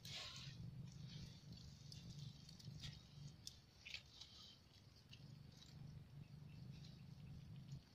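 Near silence: faint scattered ticks and rustles of hands pulling at twigs and roots in wet mud, over a low steady hum.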